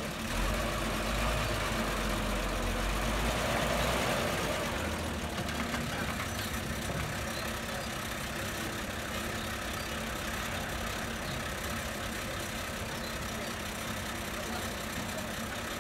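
Vehicle engine idling steadily, with a deeper low rumble over roughly the first four seconds.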